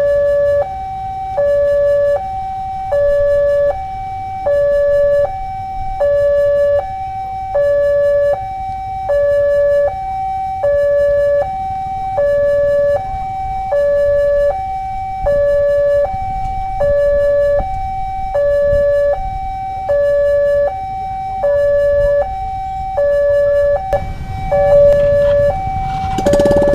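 Indonesian railway level-crossing warning alarm: an electronic two-tone ding-dong, a higher and a lower tone alternating evenly about once every 1.3 seconds, the lower tone louder. It warns road users of an approaching train. A low rumble builds near the end.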